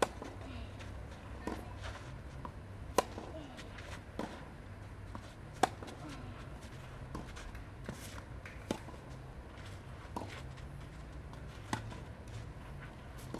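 Tennis balls being struck by rackets and bouncing on a clay court during a rally: sharp pops about every second and a half, the loudest from the near player's racket. A steady low hum runs underneath.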